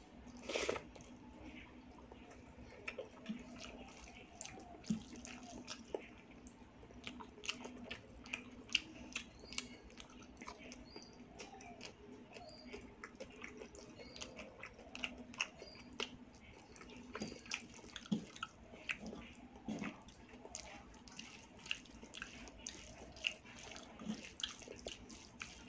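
Close-miked eating sounds: wet chewing and lip smacks, and fingers squishing rice mixed with mashed bhorta, heard as many short clicks scattered throughout, with a louder burst about half a second in. A faint steady hum runs underneath.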